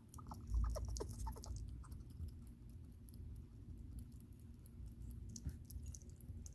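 Baby hedgehog (hoglet) chirping: a few short, thin chirps in the first second and a half, the call a hungry hoglet makes. A low thud comes about half a second in, and faint small clicks go on throughout.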